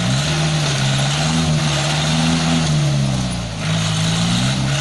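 Off-road vehicle engine revving hard, its pitch rising and easing back, dropping off near the end.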